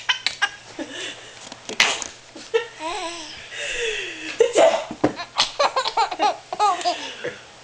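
A baby laughing in repeated bursts of high-pitched belly laughs and squeals, set off by a pretend sneeze.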